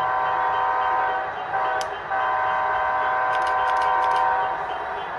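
Electronic diesel horn of a sound-equipped model locomotive, a multi-note chord. A long blast cuts off, a short blast follows, then another long one: the closing long-short-long of a grade-crossing signal.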